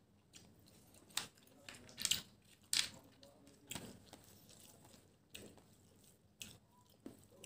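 Close-miked eating sounds: a string of about ten short, wet mouth smacks and chews at uneven spacing as she eats a mouthful of rice with snails, the loudest about two and three seconds in.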